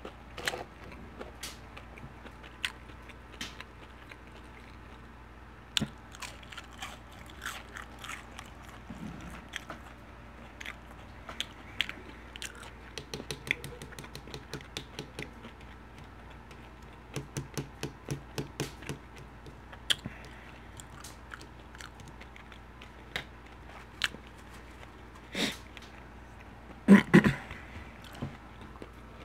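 Close-miked chewing and crunching of crispy fried food, crinkle-cut French fries, with runs of steady chewing strokes about five a second in the middle. A couple of louder knocks near the end.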